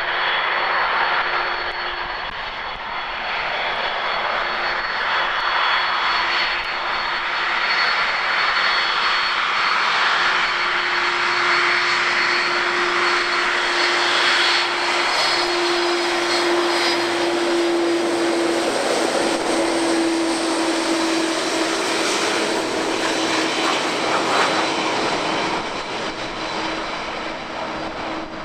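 Twin turbofan engines of a Condor Boeing 767-300 at taxi power as the airliner rolls past: a steady jet rush with a low hum and a thin high whine, growing fainter near the end as it moves away.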